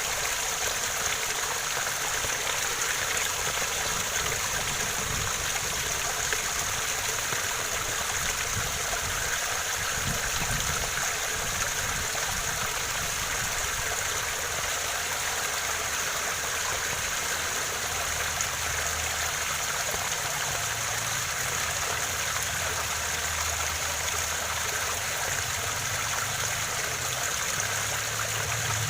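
Waterfall: a steady, unbroken rush of falling and flowing water.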